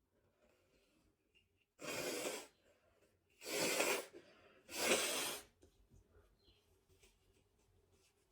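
A man with a head cold sneezing three times in quick succession, each sneeze a loud burst of breath.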